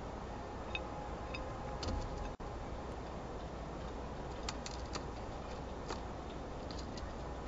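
Scattered light clicks and ticks from birds at a seed feeder tray, over a steady low hum and hiss; a slightly louder rustle about two seconds in.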